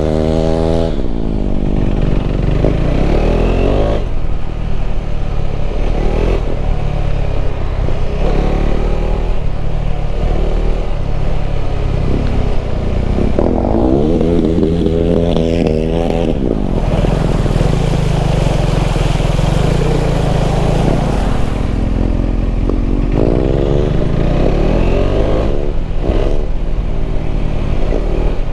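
KTM 390 Adventure's single-cylinder engine running under way on a ride, its pitch climbing under acceleration several times, with a steady pitch held for a few seconds past the middle.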